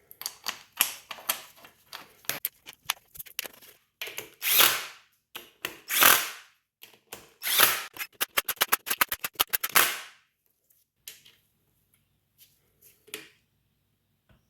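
A power tool run in several short bursts of about a second each, among rapid clicks and metallic clatter from hand tools and hardware. The bursts come about 4.5, 6 and 7.5 seconds in, followed by a quick run of ticking, then only a few scattered knocks.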